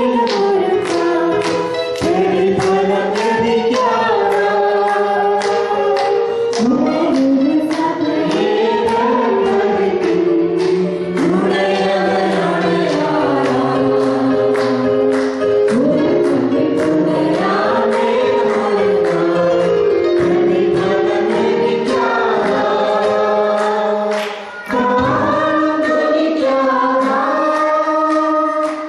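Small mixed group of male and female voices singing a gospel song together, amplified through handheld microphones.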